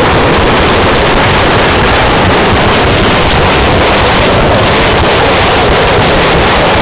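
Loud, distorted crowd noise, a steady dense rush with voices faintly under it, mixed with wind buffeting the microphone.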